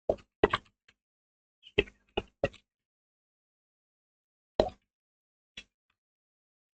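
Computer keyboard keys struck one at a time during a typing test: about seven short, irregularly spaced clicks, some in quick pairs, with silence between them.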